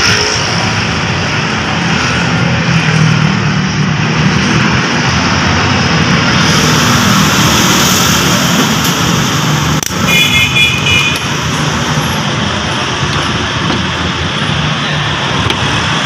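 Steady road traffic noise from passing vehicles, with a brief high-pitched tone about ten seconds in.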